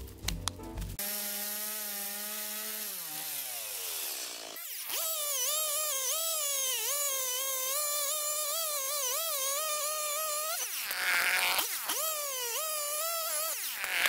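Stihl two-stroke chainsaw running at high revs as it cuts through a log, its pitch wavering up and down under load. Near the end it drops off and is revved up twice in short bursts.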